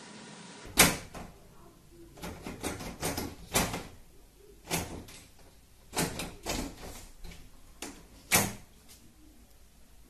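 Cat jumping at and hanging from a lever door handle: a run of sharp clacks and knocks as the handle rattles and the wooden door bangs in its frame, the loudest about a second in.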